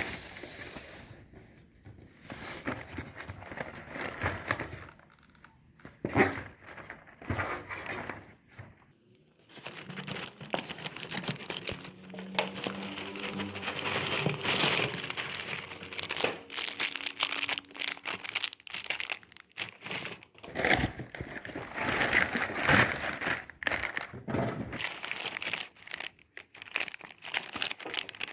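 Plastic wrapper crinkling and rustling as it is handled, in irregular bursts of crackles and clicks with short pauses.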